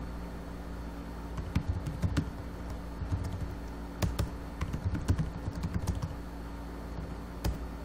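Computer keyboard being typed on: short bursts of key clicks with gaps between them, over a steady low hum.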